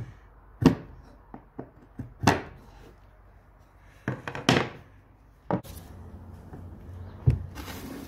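Wooden knocks and thuds on a workbench, about six of them a second or two apart, with faint scraping between, as a chisel and a hand-carved wooden arrow-shaped door bolt are handled and set down.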